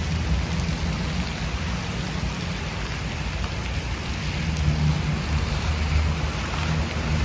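Fountain jets splashing steadily into a pool, a continuous hiss of falling water, with a low rumble underneath.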